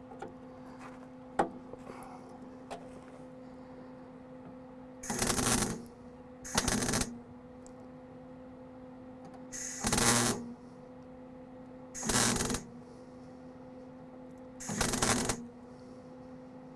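Wire-feed (MIG) welder laying short tack welds on a car's floor-pan steel: five crackling bursts of about half a second each, spaced a second or two apart, over a steady low hum.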